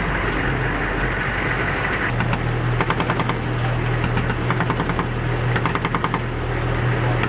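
Helicopter running: a steady low drone that grows stronger about two seconds in, with a rapid rhythmic chopping over it.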